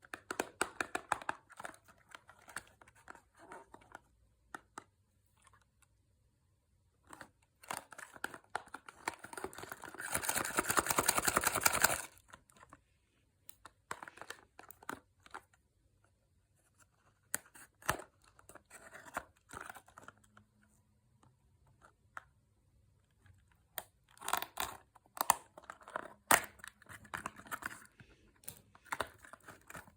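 Close-up crinkling and rustling of chocolate and candy packaging being handled and opened, with one long continuous tear about ten seconds in, the loudest sound, and scattered crackles and clicks around it.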